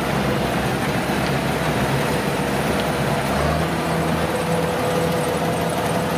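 Kubota DC105X rice combine harvester's diesel engine and threshing machinery running steadily. A steady engine hum becomes clearer about halfway through.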